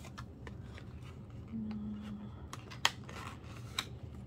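Album packaging being torn open and photocards handled: scattered rustles, crinkles and clicks, with one sharp snap near three seconds.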